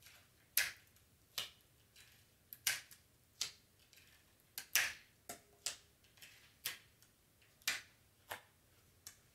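Clear adhesive tape being pulled and torn off a desktop dispenser and pressed onto cardstock: about fourteen short, sharp snaps and rips at irregular intervals, some in quick clusters.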